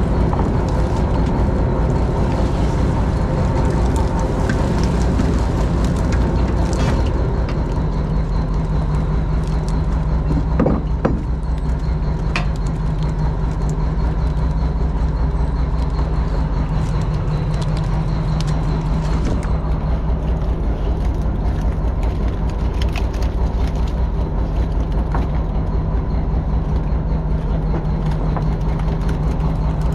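Fishing boat's engine running with a steady low drone and a faint constant whine. Scattered clatter sounds over it, with one sharper knock about eleven seconds in.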